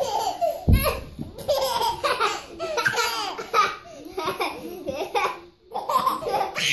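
Young children laughing in bursts, with a soft thump about a second in as a child lands on floor cushions.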